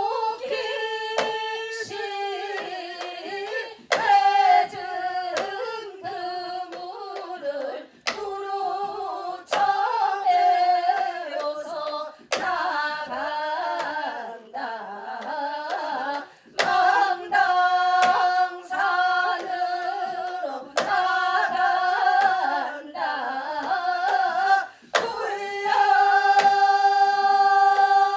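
A woman singing a Seodo sori (northwestern Korean folk song) taryeong, with long held, wavering notes broken by short breaths. Sharp percussion strokes mark the phrases every few seconds.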